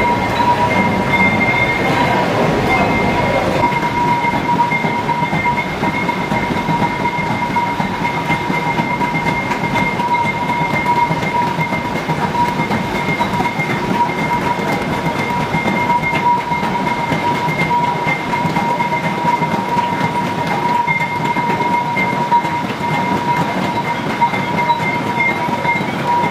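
Continuous loud din of a Hindu temple aarti: bells and drums clanging together with devotees clapping. A steady high ringing tone runs through it.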